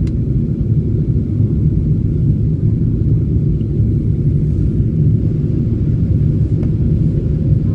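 Steady low rumble of cabin noise inside a Boeing 747-8 in flight, from its GEnx engines and the airflow over the fuselage, with no changes or distinct events.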